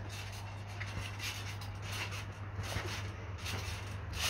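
A child bouncing on a trampoline: soft, irregular thumps and rubbing from the mat, a few times a second at most, over a steady low hum.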